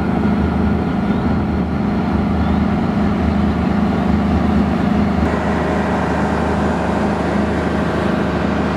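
KTM Class 25 diesel-electric locomotive's engine running steadily close by, a deep even drone that grows a little brighter about five seconds in.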